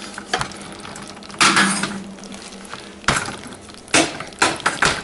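Several sharp metallic knocks and clinks from a stainless-steel saucepan being handled, over the sizzle of hot maple toffee syrup still bubbling in it just off the boil at about 250°F.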